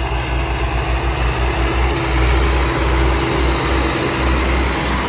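Diesel tractor engines of a Millat Massey Ferguson 385 and an ATS 290 running loud and steady under load while pulling disc harrows.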